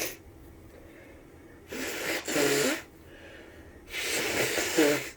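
A person with the flu sneezing twice, about two seconds apart. Each sneeze is a breathy run-up ending in a louder voiced burst.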